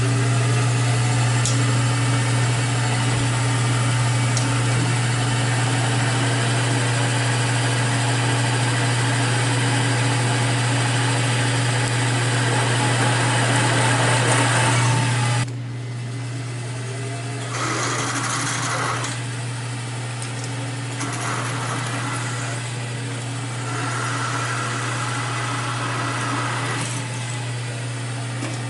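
Angle grinder running steadily and grinding welded steel corners, with a constant motor hum under the grinding hiss. It gets noticeably quieter about halfway through, with the grinding coming and going after that.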